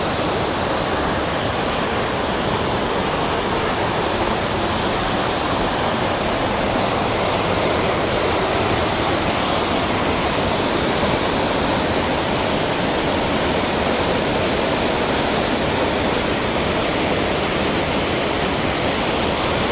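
Waterfall pouring into a large deep pool: a steady, even rush of falling water.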